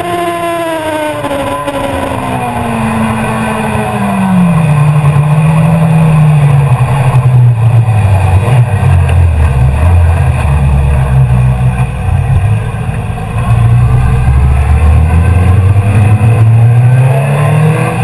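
2005 Suzuki GSX-R1000's inline-four engine heard from the rider's seat. Its note falls steadily over the first five seconds as the bike slows, then runs louder and low-pitched at low revs, and starts to rise again near the end as it accelerates.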